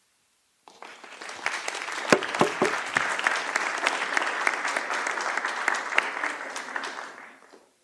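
Audience applauding: the clapping starts about a second in, holds steady, then dies away near the end.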